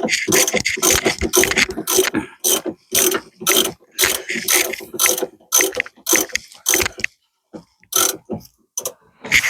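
Socket wrench ratchet clicking in short repeated strokes, about two to three a second, as a bolt is worked loose; the strokes pause briefly around seven seconds in, then resume.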